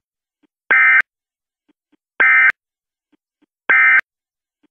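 Emergency Alert System end-of-message data tones: three short bursts of digital tones about a second and a half apart, each ending in a click, signalling the end of the alert.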